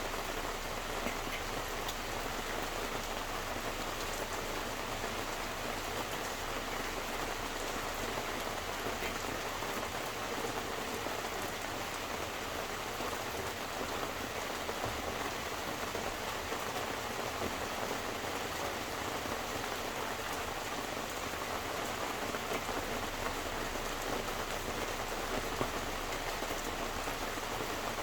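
Steady rain falling, with many small drops pattering on surfaces close by in an even, unbroken hiss.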